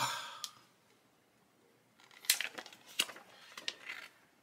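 Paper rustling and crinkling in short bursts with a few light clicks, as a printed instruction booklet is handled and leafed through: one burst at the start, then more from about two seconds in.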